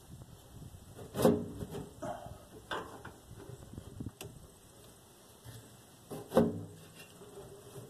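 Metal clanks and knocks, each ringing briefly, as tools and hardware are handled while a steel fuel tank is bolted up under a car. The loudest strikes come about a second in and again near six seconds, with lighter taps in between.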